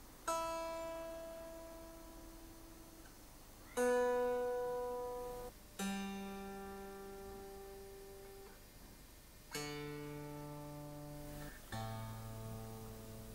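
Fender Stratocaster electric guitar being tuned: five open strings plucked one at a time, each left to ring out for about two seconds, each note lower than the last, from the high E string down to the A string.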